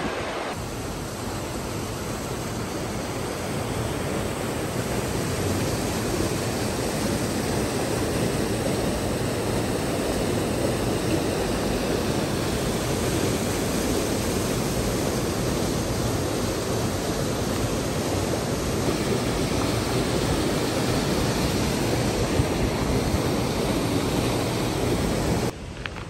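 Steady rush of a mountain stream tumbling over small waterfalls in a rocky gorge. Near the end it drops suddenly to a quieter hiss.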